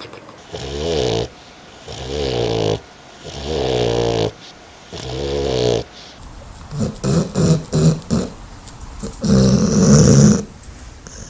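Dog snoring: four long, pitched snores about a second and a half apart, then a run of short, quick snores and one longer, louder snore near the end.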